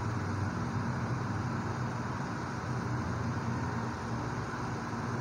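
Chopped onions, chillies and curry leaves frying in oil in a pan, a steady soft sizzle over a low, even hum.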